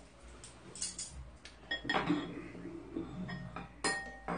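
Metal spoon and chopsticks clinking against bowls while eating: a scattering of light clinks, a couple near two seconds and four seconds in ringing briefly.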